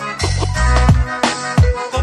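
Background music with a steady beat, deep bass drum and sustained instrument notes.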